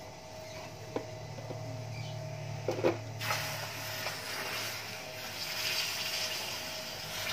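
A few metal clanks as a steel motorcycle muffler is handled, then from about three seconds in the steady hiss of a stick arc welder laying a weld on the muffler, over a low steady hum from the welding set.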